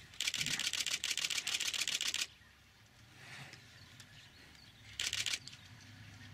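Camera shutter firing in a rapid continuous burst for about two seconds, then a second short burst about five seconds in.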